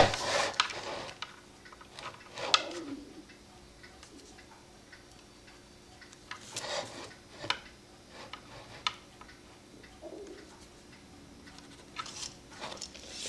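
Scattered light taps, clicks and short rustles as bellows paper and small tools are handled while the paper is marked out.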